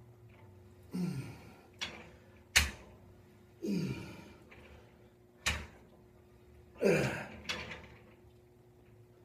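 Cable pulldown machine worked through about three repetitions, a few seconds apart. Each rep has a sliding whir of the cable and weight stack that falls in pitch, and sharp metallic clanks from the stack.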